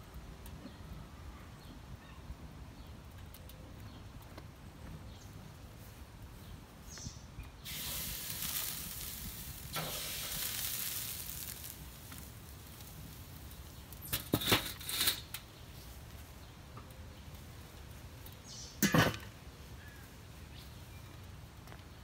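Turkey legs hiss for a few seconds on a hot charcoal grate. Then come sharp metal clanks as the enamelled steel lids of a Weber kettle grill and a Weber Smokey Mountain cooker are set on: a cluster of clanks about two-thirds through, and a single clank near the end.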